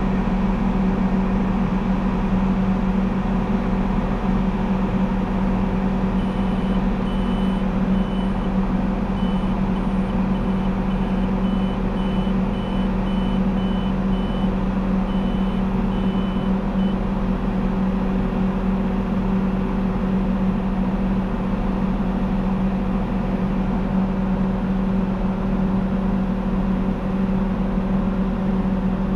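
Tractor engine running steadily, a constant drone. From about six seconds in to about two-thirds through, a run of short, high electronic beeps, like a warning beeper.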